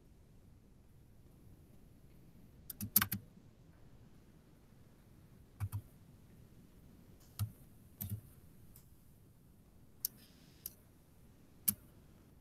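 Sparse, irregular clicks of a computer keyboard: a quick run of several keystrokes about three seconds in, the loudest, then single taps and pairs scattered through the rest.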